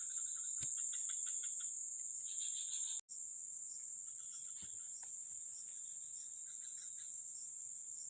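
Steady, high-pitched chorus of insects such as crickets, with clusters of short chirping calls over it. The sound cuts out for an instant about three seconds in.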